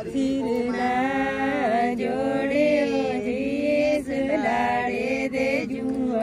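A voice chanting Sanskrit mantras in long, held notes that bend and glide in pitch.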